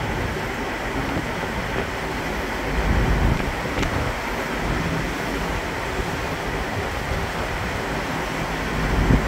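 Wind buffeting the microphone in a stiff breeze, with heavier gusts about three seconds in and near the end, over a steady low hum from the engines of the ferry MV Saaremaa 1 as it docks.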